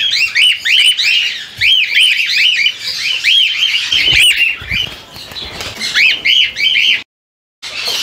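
A flock of cockatiels calling: many quick, rising-and-falling whistled chirps, several a second, thinning out midway and picking up again, with a brief cut-out near the end.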